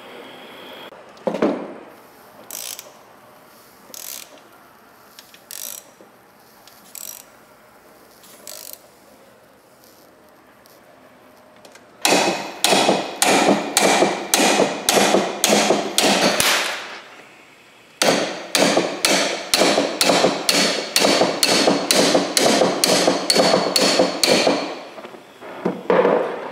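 Air impact wrench hammering on a bearing puller's forcing screw in two long runs, about five and then seven seconds, as the puller works a torch-heated bearing off the crawler transmission's shaft. A short torch hiss and a few light clicks come first.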